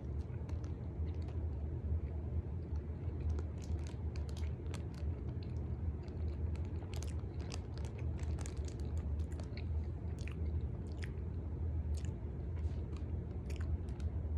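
A person chewing a mouthful of soft glazed strawberry-frosted honey bun close to the microphone, with scattered wet mouth clicks and smacks, over a steady low hum.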